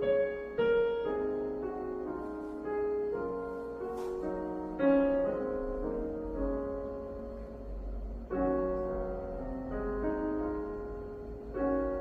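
Yamaha CK88 stage keyboard's sampled acoustic piano voice playing a simple practice piece: single notes and chords struck one after another, each with a clear attack and ringing decay. There is a brief sharp click about four seconds in.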